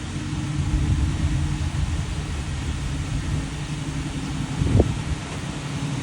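Fire apparatus engine running with a steady low drone, with a short knock about five seconds in.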